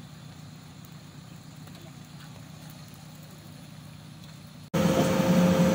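A faint, steady low hum, then, after a sudden cut near the end, the loud, steady drone of a JCB backhoe loader's diesel engine running, heard from the operator's seat.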